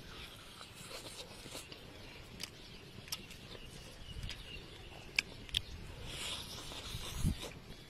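Close eating sounds of crispy fried fish being bitten and chewed, with soft mouth thumps and a couple of sharp clicks a little past halfway. Faint bird chirps in the background.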